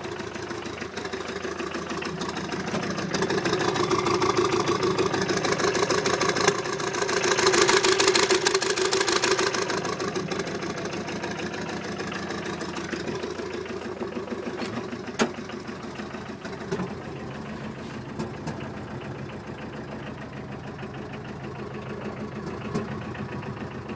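Custom turbo diesel engine of a Dodge D50 Power Ram pickup running through its hood exhaust stack, which has had rain water get in while uncovered. It grows louder from about three seconds in, is loudest around eight seconds, then settles back to a steadier, quieter run, with a couple of short clicks along the way.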